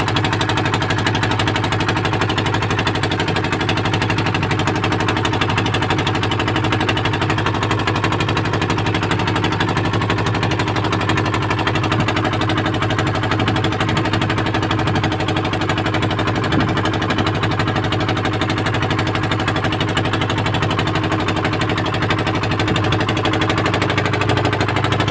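A small boat's engine running loud and steady at a constant speed, with a fast, even pulsing beat.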